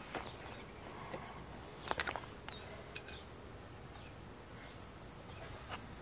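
Faint outdoor ambience: a steady high insect buzz, one short falling bird call about two seconds in, and a few light clicks and rustles of hands sifting through loose potting soil.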